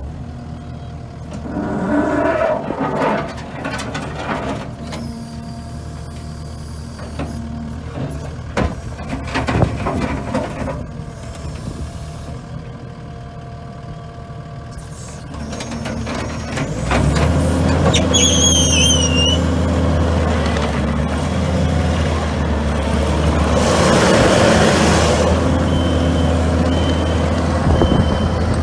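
Kubota SVL75-2 track loader's V3800 four-cylinder diesel engine running, throttled up about two-thirds of the way through, with knocks and clanks and a brief hiss. A backup alarm beeps near the end.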